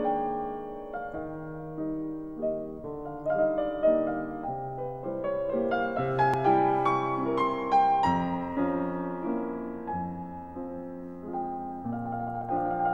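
Solo piano music: a flowing melody over held bass notes, with notes struck in quick succession.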